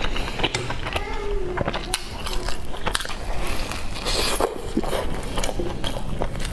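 Close-up eating sounds: a person chewing soft bread with many small wet clicks, then biting into a soft filled bread roll about four seconds in.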